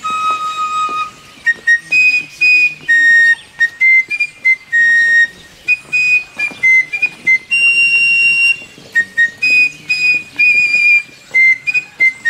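Fifes playing a high march melody of held and stepping notes over sharp, regular drum strokes: fife and drum music.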